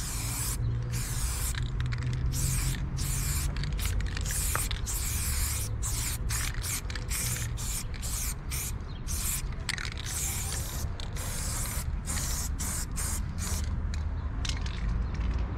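Aerosol spray paint can spraying onto a wall, hissing in many short bursts that start and stop with brief gaps between them, over a steady low rumble.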